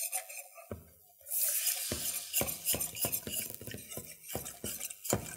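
Metal utensil stirring a roux in a stainless steel saucepan, scraping and knocking the pan in quick strokes about three to four times a second, as milk is poured in to make a béchamel sauce. About a second in there is a short hiss as the milk meets the hot pan.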